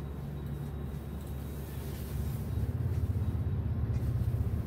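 Low, steady mechanical rumble that grows louder a little over two seconds in.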